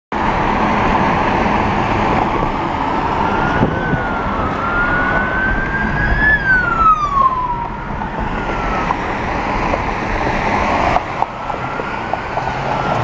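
FDNY ambulance's electronic siren (Federal PA4000) in wail mode, sweeping slowly up and down in pitch, with one quicker fall about halfway through. Heavy traffic noise runs underneath.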